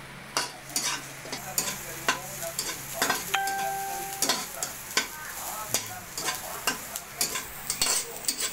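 Chopped garlic and red onion sizzling in oil in a wok, with a metal spatula scraping and knocking against the pan about once or twice a second. A short steady tone sounds for about a second, about three seconds in.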